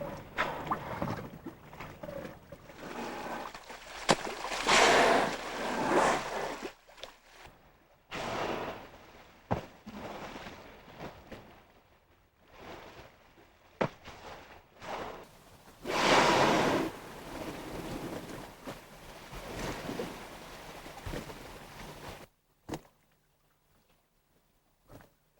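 Water washing and splashing in irregular surges, with a few sharp knocks; it cuts off suddenly near the end.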